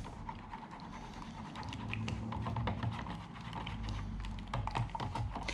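Bona Traffic water-based floor finish being mixed in its container: light irregular clicks, taps and scrapes as the mix is stirred and worked off the sides.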